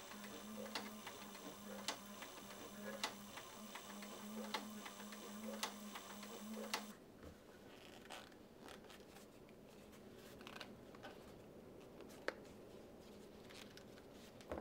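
Leather stitching machine sewing a knife sheath slowly: a steady motor hum with a click at each stitch, about one a second, stopping abruptly about seven seconds in. After that, only faint handling of the leather.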